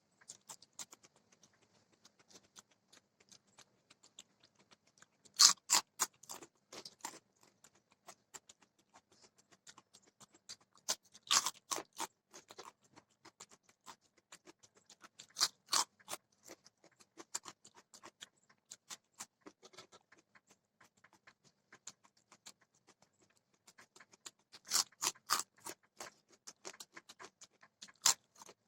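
Close-up chewing and crunching of food, with quiet mouth clicks throughout and louder crunchy bites coming in bursts about five times.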